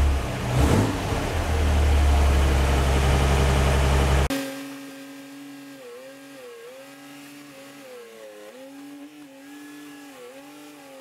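The V8 engine of a 1949 Chevy 3100 pickup, just started and running loudly. About four seconds in it cuts off abruptly, leaving a much fainter hum whose pitch dips every second or so.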